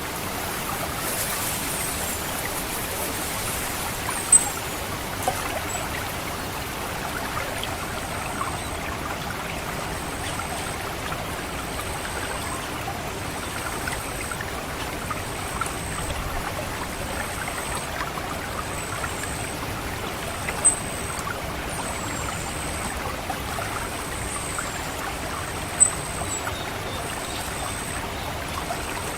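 Steady trickling of water in a rice paddy. Over it, an orange-headed thrush gives its high, thin 'ngecit' call, with short notes repeating about once a second and now and then a downward-sliding note. Three sharp clicks stand out, at about four seconds in, about two-thirds through and near the end.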